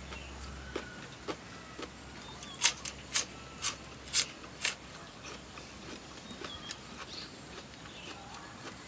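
Five loud crunches about half a second apart, a few seconds in: crunchy food being chewed close to the microphone, with a few lighter clicks and faint short chirps around it.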